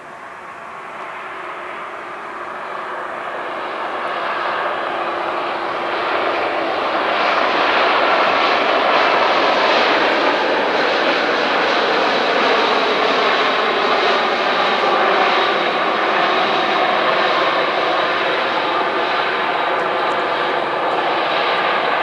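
Bombardier CRJ900 regional jet's two rear-mounted General Electric CF34 turbofans running during the landing roll-out just after touchdown. The jet roar grows louder over the first several seconds as the aircraft nears and passes, then holds, with a steady high whine above it.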